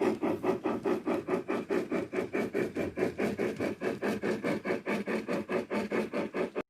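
Steam exhaust chuffs of a BR Standard Class 9F, played from real 9F recordings by a model locomotive's DCC sound decoder: a fast, even beat of about six chuffs a second that cuts off suddenly near the end.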